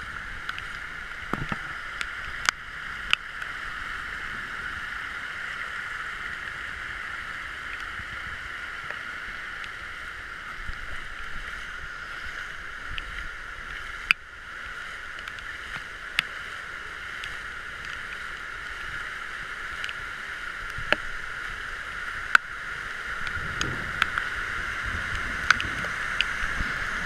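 Floodwater rushing during a heavy rainstorm, a steady watery rush with scattered sharp ticks of raindrops hitting the camera. The rush grows louder and fuller in the last few seconds as the fast brown torrent comes into view close by.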